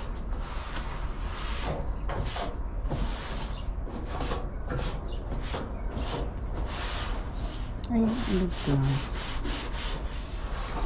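Rough sweeping or scrubbing strokes, repeating about twice a second.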